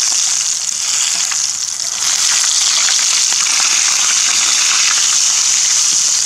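Whole quail deep-frying in hot cooking oil in a small pot: a steady sizzle with fine crackling as the bubbling oil fries the bird.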